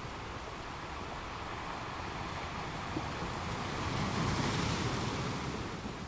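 Ocean surf: a steady rush of breaking waves that swells to its loudest about four to five seconds in, then eases.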